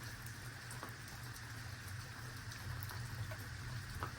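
Steady rain falling, with scattered drops ticking close by over a low steady hum.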